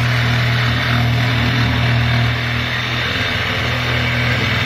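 KEN electric jigsaw running steadily, its blade cutting through plywood to trim off the excess along a wooden frame.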